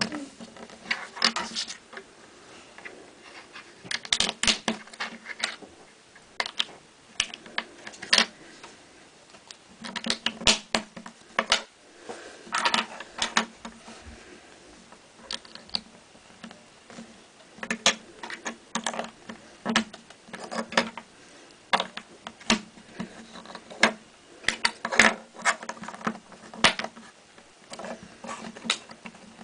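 Plastic Lego bricks clicking and clattering as they are handled and snapped together, in irregular bursts of sharp clicks.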